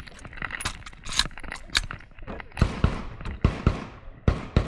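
A run of sharp clacks and knocks as a Chinese Type 53 Mosin-Nagant carbine is handled between shots at a wooden barricade: its bolt is worked and the rifle is shifted. The knocks come in about three pairs in the second half, each far quieter than a shot.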